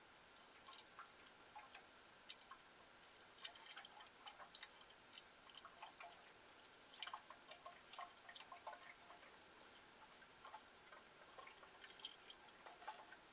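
Faint, irregular glugs and drips of motor oil being poured from a quart jug through a plastic funnel into an engine's oil filler.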